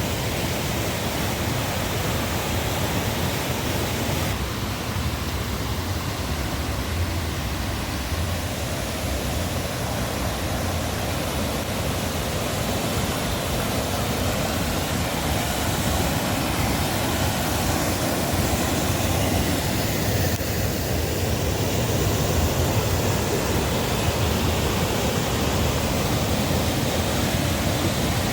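Steady rush of a river and waterfall running high after heavy rain.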